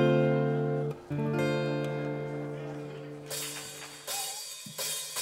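Steel-string acoustic guitar: a strummed chord rings out and stops abruptly about a second in, then a second chord is strummed and left to fade away.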